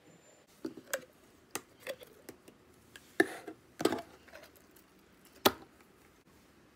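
Glossy slime being squeezed out of ribbed plastic containers and pressed by hand: a scatter of sharp clicks and pops, with a short squelch about three seconds in and the sharpest pop about five and a half seconds in.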